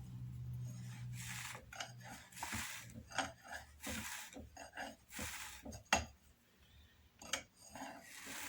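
Drum carder being cranked with wool fleece going through it: a series of rasping swishes as the carding cloth drags through the fibres, about one a second, with a few sharp clicks. This is a carding pass that combs out short hairs and nips to make a batt.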